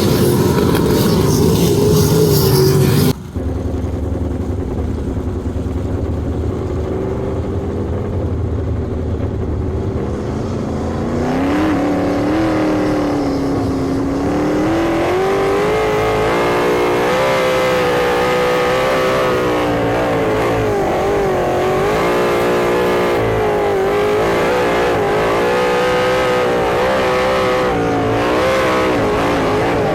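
Sprint car engine at racing speed, its pitch rising and falling again and again as it accelerates on the straights and lifts for the turns. The sound changes abruptly about three seconds in, with the engine louder and noisier before the change.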